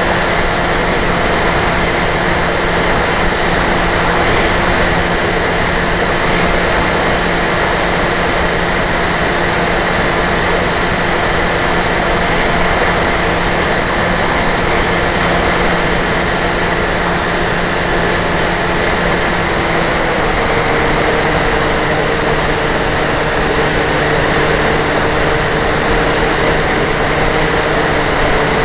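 Dynam Hawk Sky RC plane's electric motor and propeller running steadily in flight, picked up on board with heavy wind rush. The motor tone shifts in pitch about twenty seconds in, a change of throttle.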